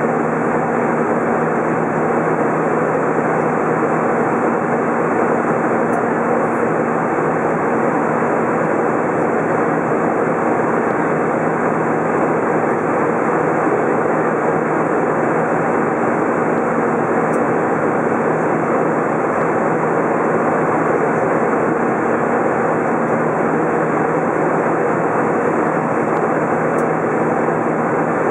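Steady cabin noise inside an Airbus A320 in flight: an even rush of engine and airflow heard from a window seat over the wing, with a faint low steady hum under it.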